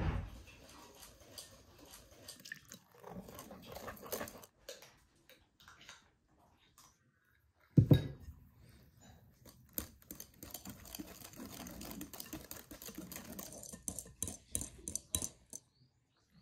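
Metal wire whisk stirring thick batter in a glass bowl, its wires clicking and scraping against the glass in quick runs. There is a knock at the start and a louder one about halfway.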